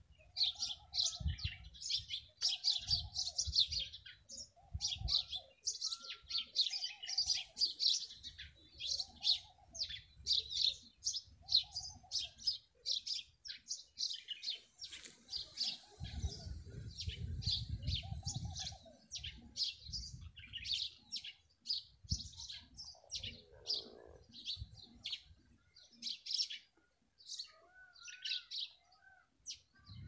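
Several small birds chirping in quick, dense bursts, with a lower call repeated about once a second through much of it. Patches of low rumble underneath, heaviest about halfway through.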